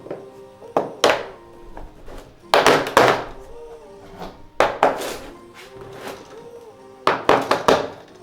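A dozen or so heavy knocks from renovation work, coming in irregular clusters, over soft background music.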